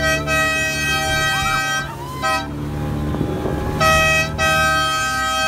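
A horn sounding long steady blasts: one of about two seconds with a short piece after it, then a gap, then another from about four seconds in. Underneath, the low steady running of a small boat's motor.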